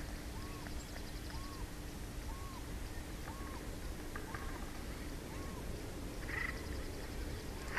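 A short rise-and-fall animal call repeats about once a second for the first five seconds or so, then a brief higher call near the end, over steady wind rumble on the microphone and a faint low hum.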